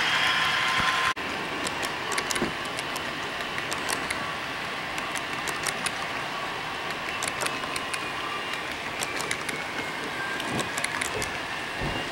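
A louder steady hiss cuts off abruptly about a second in. Then an HO scale model double-stack container train rolls along a curve: wheels clicking irregularly over the track, with a faint high whine.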